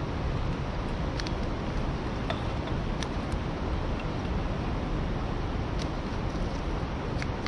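Steady rushing noise, heaviest in the low end, of wind on the microphone and the flowing river. A few faint clicks and ticks come through it.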